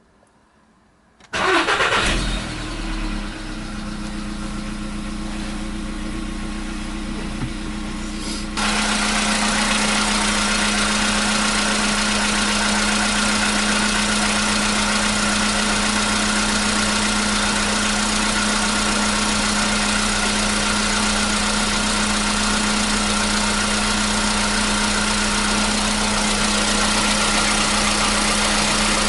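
Cold start of a Volkswagen Polo Sedan's 1.6-litre CFNA four-cylinder petrol engine: the starter cranks briefly and the engine catches about a second in, then settles into a steady idle without a knock. About eight seconds in, the sound steps up louder and fuller and stays steady.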